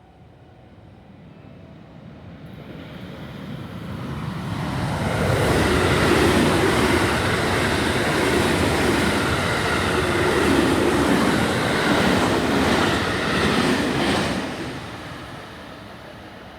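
A JR West 223 series 2000-subseries electric multiple unit, two sets coupled, passing over a level crossing: the rush of wheels on rail and running gear swells in, stays loud for about nine seconds, then dies away near the end.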